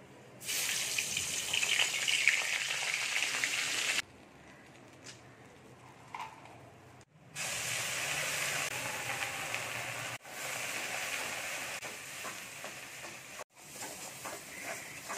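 Hot fat sizzling in a kadai in several stretches that cut off suddenly. Partway through, a ground paste of cashew, tomato, onion, garlic and chillies is poured in and sizzles, and a spatula stirs it.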